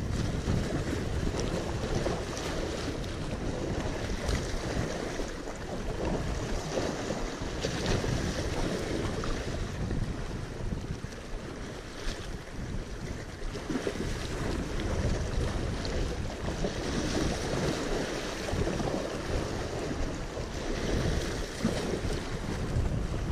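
Wind buffeting the microphone over waves washing and splashing against jetty rocks, a steady rush that swells and eases.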